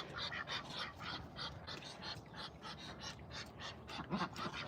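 A dog panting rapidly and evenly, about four to five breaths a second.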